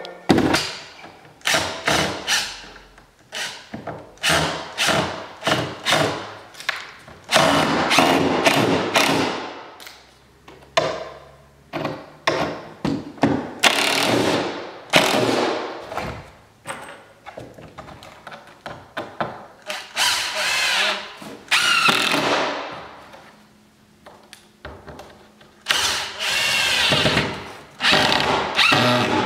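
A cordless Makita impact driver drives screws through plywood strips into a wooden stair. It runs in short trigger pulls and in longer bursts of a second or two as each screw is sent home, with short pauses between screws.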